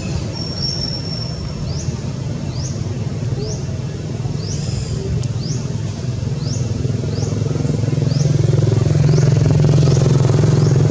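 A motor engine running steadily, growing louder in the second half, with short high rising chirps repeated roughly every half second above it.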